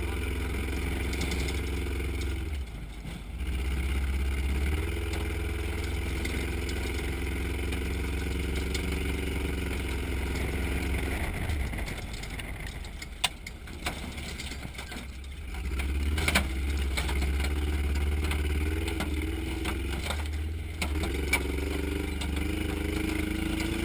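Trophy truck's engine heard from inside the cab on a dirt trail, rising and falling in pitch with the throttle. It eases off for a few seconds about halfway through and then picks up again, with a few sharp knocks mixed in.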